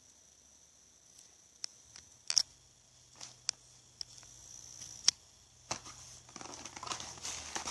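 Handling noise: a few sharp clicks and taps spread over several seconds, then rustling from about six seconds in.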